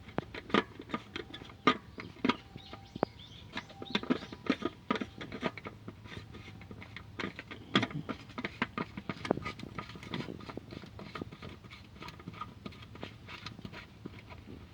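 Irregular small clicks and knocks of hands fitting a new oil filter cartridge into its filter housing.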